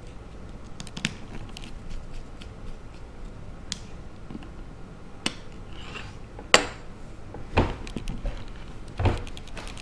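Light clicks and scrapes of a mini screwdriver taking tiny screws out of an iPhone 3GS, with a handful of sharper taps of small metal parts; the loudest tap comes about six and a half seconds in.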